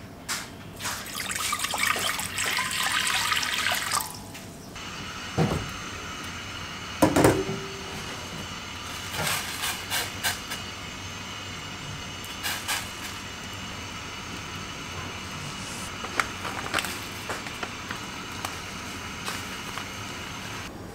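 Water running from a tap into a stainless steel pot for about four seconds. Then come two heavy knocks a couple of seconds apart, and a steady hum with scattered light clinks and small knocks.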